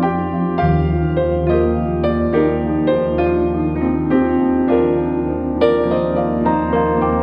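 Soft piano music: a flowing line of single notes, a few a second, over a held low bass tone that shifts to a new note about half a second in.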